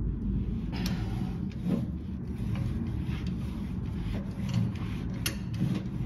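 Old plastic water heater drain valve being unscrewed with tongue-and-groove pliers: plastic rubbing and grinding on its threads as it is turned, with a few sharp clicks.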